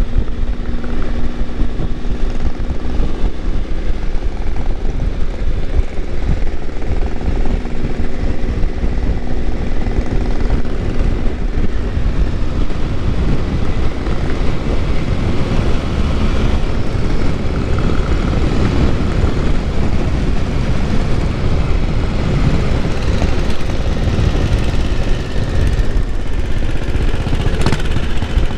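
Motorcycle riding along at road speed: heavy wind rush on the microphone over the steady running of the Triumph Tiger 955i's three-cylinder engine.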